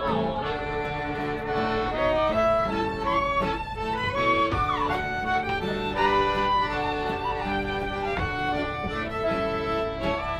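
An acoustic tune played live on fiddle, which carries the melody, over acoustic guitar, with a small pipe whistle joining in.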